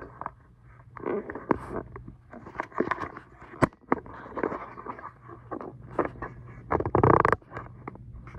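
Rustling, scraping and clicking handling noise from a hand-held phone being moved about, over a faint steady low hum, with a louder burst about seven seconds in.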